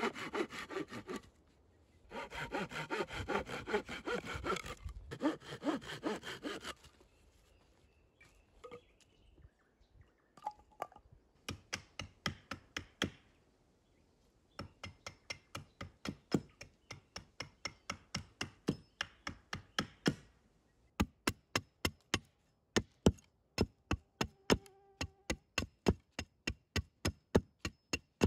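A small hand saw cutting through a dry pine log in two bouts of back-and-forth strokes. After a pause come runs of quick, even strokes on wood, ending in sharp hatchet blows about three a second, shaving curls off a log.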